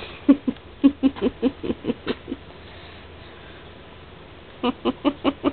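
Boxer puppies licking: rapid wet licks, about five a second. They stop for about two seconds and start again near the end.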